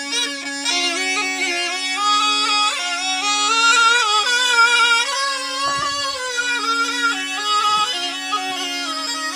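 Snake charmer's been (pungi), a gourd reed pipe, playing a winding melody over a steady drone.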